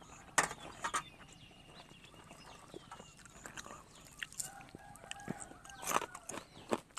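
Soft chewing and mouth clicks as a man eats, with a faint animal call in the background in the middle of the stretch.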